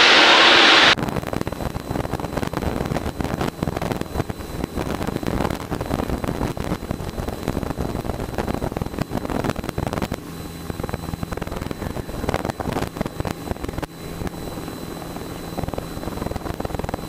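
Cabin noise of a Piper Cherokee in flight: the single piston engine and propeller running steadily, with wind buffeting the microphone. It opens with about a second of loud hiss that cuts off suddenly.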